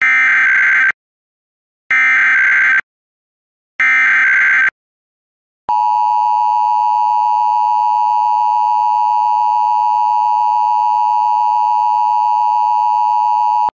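Emergency Alert System test tones: three one-second bursts of SAME header data, each a rapid digital warble followed by silence, then the steady two-tone EAS attention signal (853 and 960 Hz together) starting about six seconds in and held for about eight seconds.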